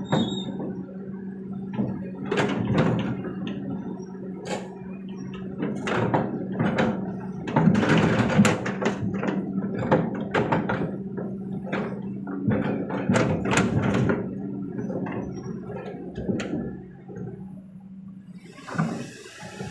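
Kobelco SK200 excavator at work loading a dump truck: a diesel engine runs steadily under a string of knocks and clanks from the bucket and the load. There is a louder rushing spell about eight seconds in, as material pours into the truck bed. The engine hum fades out near the end.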